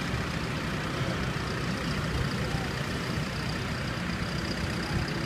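Diesel farm tractors pulling rakes and balers driving slowly past in a row, their engines running with a steady low rumble.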